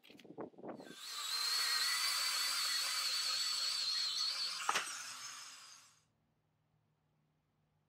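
Handheld power cutter cutting through a steel trailer axle: a few knocks as it is set up, then a loud, steady, high-pitched whine of the blade in the steel. A sharp clank comes near the end of the cut, and the tool winds down and stops about six seconds in.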